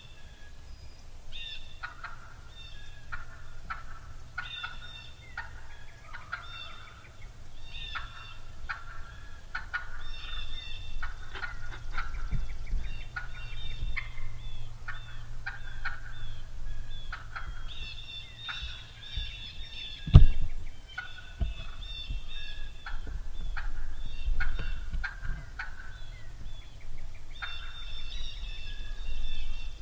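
Wild turkey hen cutting: rapid, irregular bursts of sharp clucking notes, calling on and on. About twenty seconds in there is a single loud thump.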